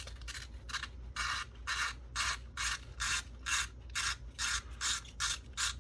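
Plastic film-winding mechanism of a Kodak Advantix F600 camera being turned by hand, giving short rasping strokes about three times a second as the film is wound in.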